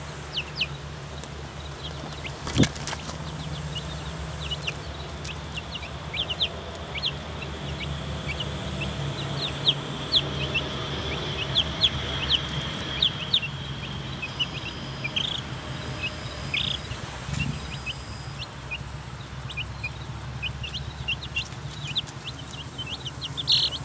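Baby chicks peeping: many short, high peeps scattered throughout, coming thicker at times. One sharp knock about two and a half seconds in, over a steady low hum.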